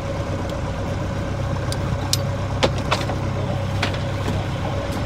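Ketch's engine running steadily with a low hum, with a few sharp knocks and taps over it a little after two seconds in and again just before four seconds.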